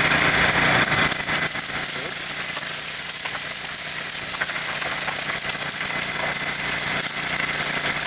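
Fully involved room fire in a burn cell crackling and popping over a steady rush of flame, as the compartment burns toward flashover. A steady engine hum runs underneath.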